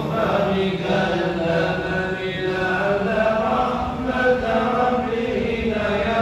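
Voices chanting Arabic devotional verses in a slow, melodic, unbroken chant.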